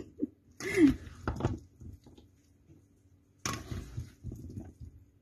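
Dressed chopped chicken, sweet potato and potato salad being mixed in a metal bowl with plastic paddles and by hand: soft wet stirring and light scraping in two short spells, the second and louder one about three and a half seconds in.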